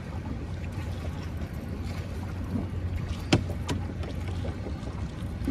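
Boat motor running steadily with a low hum, and a single sharp knock a little past halfway.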